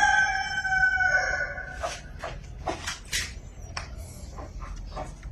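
Rooster crowing: the drawn-out end of a crow, already under way, dips in pitch and stops about a second and a half in. Scattered short clicks and knocks follow.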